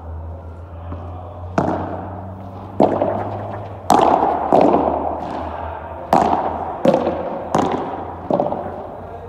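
Padel rally: about eight sharp, echoing pops of the ball being struck by solid padel rackets and bouncing off the court and walls, roughly one a second, over a steady low hum.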